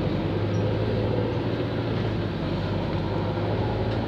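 Steady low hum of vehicle engines in street traffic, with no breaks or sudden sounds.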